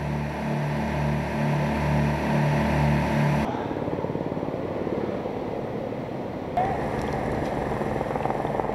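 Engines running on a fire ground: a droning motor with a regular pulse, then a rougher, rapidly rattling engine sound after an abrupt change about three and a half seconds in.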